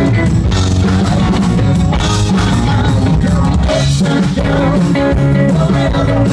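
Live rock band playing, with guitar and drum kit, loud and steady.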